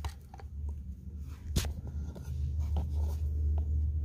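Handling noise and small clicks as the mode-selector button on a Milwaukee M18 Fuel impact driver is pressed, with one sharper click about a second and a half in. A steady low rumble runs underneath and grows louder partway through. The driver itself is not running.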